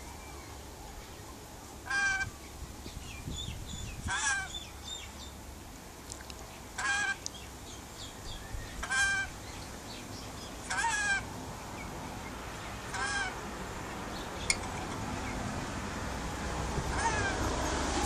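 A bird calling in short, repeated calls, six of them about two seconds apart, with fainter chirps in between.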